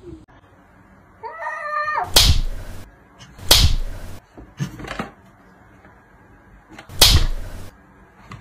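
Two cats in a standoff: a short wavering cat cry, then three loud, sharp spitting hisses at about two, three and a half and seven seconds in, with a couple of fainter ones between.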